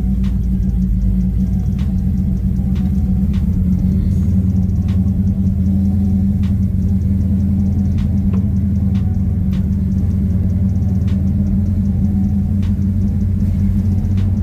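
LS-swapped V8 running at low revs on open headers as the car rolls off slowly, a loud, steady low rumble heard from inside the cabin. A turn-signal flasher clicks over it about once every 0.8 seconds.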